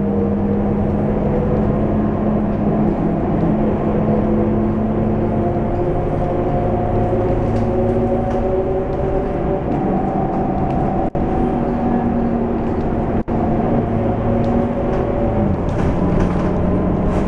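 Scania K230UB city bus's five-cylinder diesel engine and drivetrain running under way, heard from inside the cabin as a steady hum with several held tones. The tones drift slowly in pitch, step down shortly before the end, and there are two very short dropouts in the sound near the middle.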